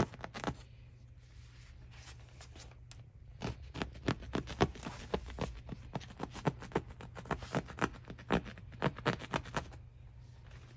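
Mattress ticking fabric and cotton padding being pulled and torn apart by hand: an irregular run of sharp crackling snaps and rustles. The snaps are sparse at first and come thick and fast from a few seconds in until near the end.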